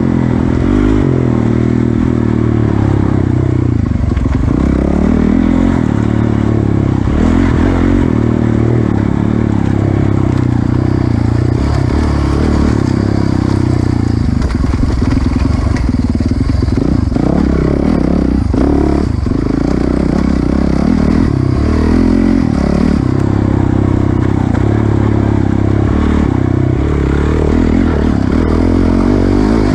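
Enduro dirt bike engine under way, revving up and down continuously as the rider works through the throttle and gears on a tight trail.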